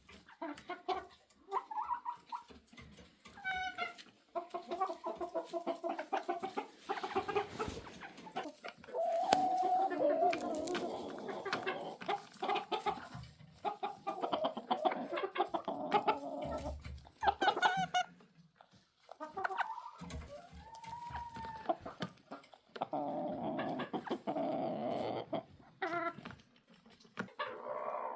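Chickens clucking in quick, broken runs of calls, several birds at once.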